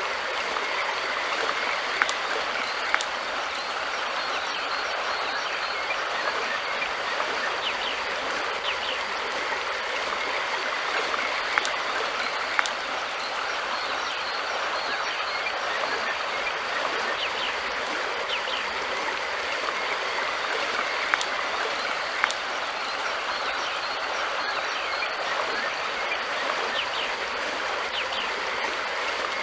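River water flowing steadily with an even rushing sound, with a few brief sharp clicks.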